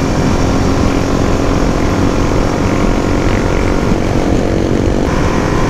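Suzuki DR-Z400 supermoto's single-cylinder four-stroke engine running at a steady cruise, with heavy wind noise on the microphone.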